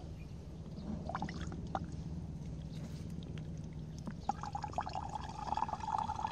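Water pouring and trickling into a buried plastic irrigation tube cap, with a steady low hum under it that fades near the end and a higher steady tone joining about four seconds in.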